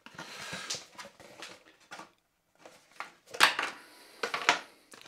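A white cardboard sample box and its folded insert being handled as a sample tube is pushed in to clamp it. Paper-like rustling comes first, then a few sharp clicks and knocks from about three and a half seconds in.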